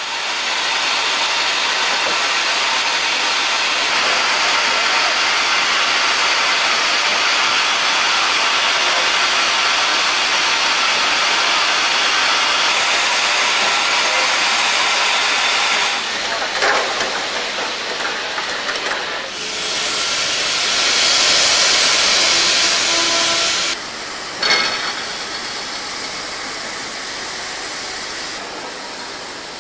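Steam locomotives hissing steam: a steady hiss that changes abruptly a few times, with a louder blast of steam about twenty seconds in and a couple of sharp knocks soon after it.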